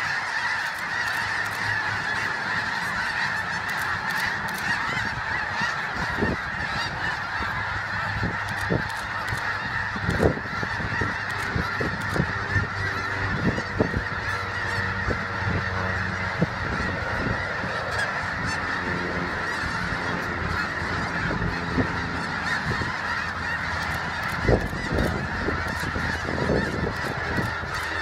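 A huge flock of snow geese calling all at once, a dense unbroken din of overlapping honks, with a few brief low thumps.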